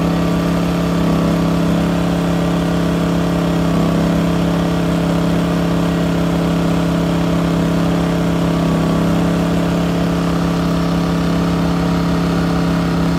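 Taiwan Power GT2000W inverter generator's 79cc single-cylinder engine running steadily at constant high speed, switched to forced high-speed mode instead of its automatic eco throttle. The hum holds one steady pitch throughout.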